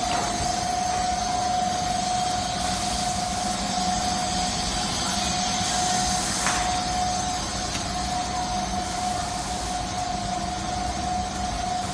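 Wood-grain transfer machine's electric motors and fan running steadily: an even whir and hiss with a constant whine.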